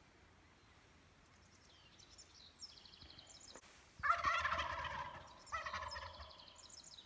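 Wild turkeys gobbling: fainter calls at first, then two loud gobbles about a second and a half apart, each lasting over a second.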